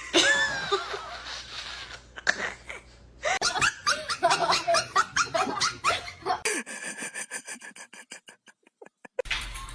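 Laughter in quick choppy bursts, then a run of evenly spaced short pulses that slow and fade out.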